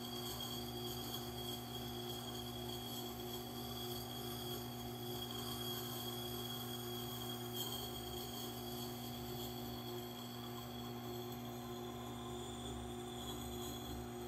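Steady hum of a Tormek T8 wet sharpening machine running while a hatchet edge is ground on its turning stone.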